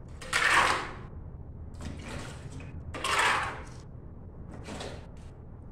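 Long-handled pool brush scrubbing the tiled floor of an empty swimming pool: scraping strokes, two louder ones about half a second and about three seconds in, with fainter strokes between.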